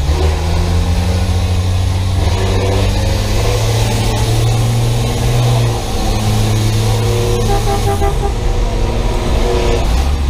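School bus engine running hard under throttle, heard from inside the cab, its pitch climbing and then dropping briefly about six seconds in and again near eight seconds in.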